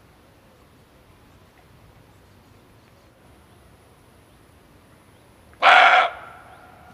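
A male kijang (muntjac, barking deer) gives one short, loud bark about five and a half seconds in, trailing off in a brief echo, over a faint background hiss.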